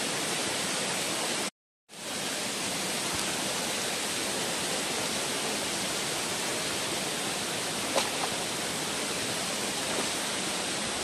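Waterfalls pouring into a rock pool make a steady rushing that cuts out for a moment about a second and a half in.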